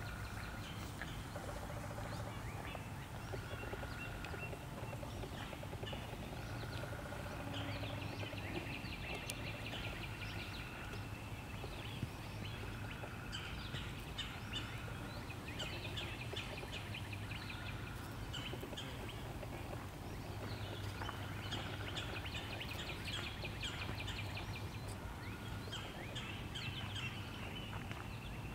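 Several wild birds singing in woodland, a dense mix of short chirps and trills with one simple whistled note repeated every couple of seconds, over a steady low hum.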